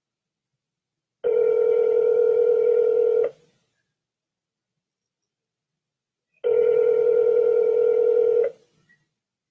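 Telephone ringback tone on an outgoing call: two rings, each a steady tone about two seconds long, with about three seconds of silence between. The called line is ringing and has not yet been answered.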